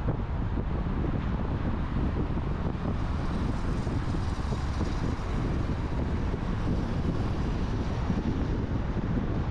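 Steady road, tyre and wind noise from a car cruising at expressway speed.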